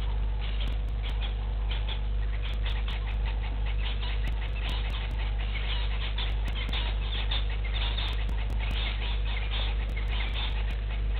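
Outdoor bush ambience: a steady low hum under dense, irregular clicking and chirping that runs throughout.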